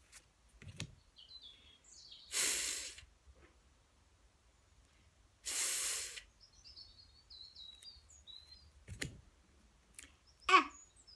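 A woman's voice saying the pure phonics sound "fff" as a long unvoiced hiss, twice, about three seconds apart, then a short "e" near the end. Birds chirp faintly in the background.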